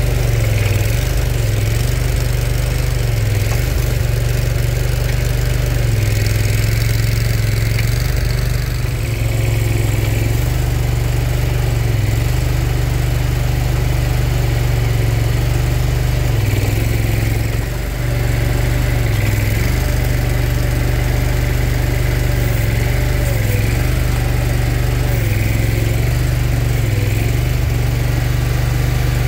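Kohler 27 hp Command Pro V-twin engine of a Boxer 427 mini skid steer running steadily and loud. It briefly dips in level about nine seconds in and again near eighteen seconds.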